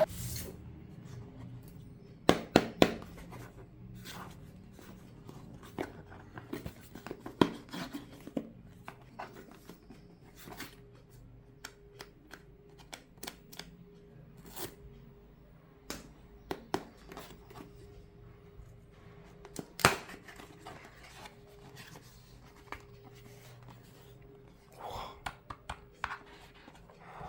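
Scattered clicks, taps and rustles of a JBL Clip 5 speaker's box and packaging being handled and opened, with a faint steady hum underneath. The loudest single click comes about two-thirds of the way through.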